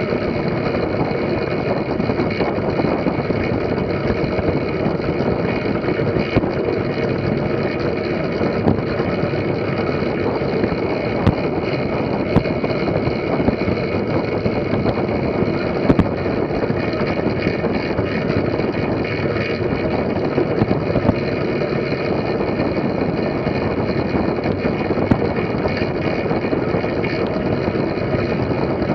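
Steady rush of wind over the microphone and rumble of tyres rolling on wooden track boards, from a track bike riding at speed in a line of riders, with a few faint clicks.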